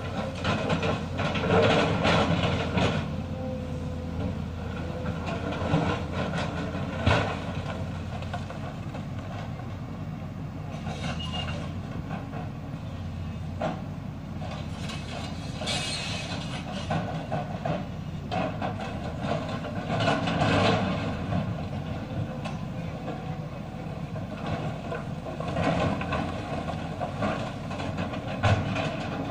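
Lonking excavator's diesel engine running while it digs rock, swelling louder every few seconds as the machine works, with scattered knocks and clatter of rock and steel.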